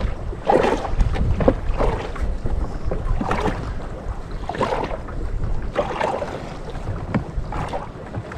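Strong sea wind buffeting the microphone in a steady low rumble, with irregular surges of water sloshing against a small boat's hull.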